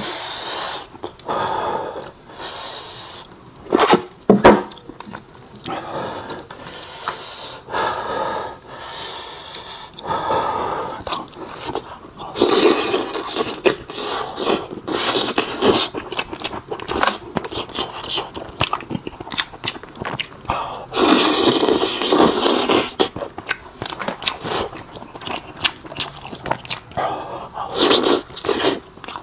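Close-miked eating of braised pig head meat pulled off the bone by hand: wet chewing and smacking with occasional crunches and sharp clicks. The loudest stretches come about 12 seconds in and again about 21 seconds in.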